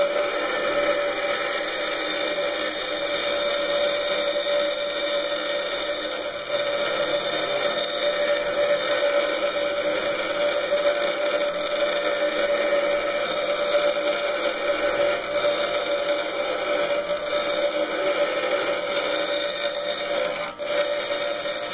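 Bench grinder running with a steady whine while a steel hex key is pressed against the spinning grinding wheel, grinding metal with a continuous rasp.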